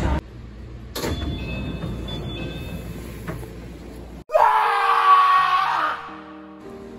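A sudden scream about four seconds in, lasting under two seconds, used as a horror sound effect. Then a few slow, low music notes.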